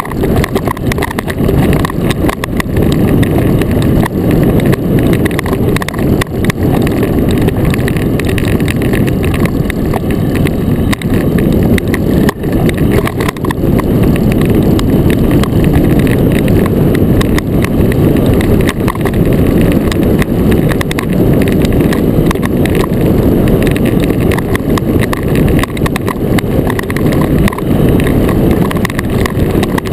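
Iceboat runners skating fast over clear lake ice: a loud, steady rumble and hiss with many small ticks running through it.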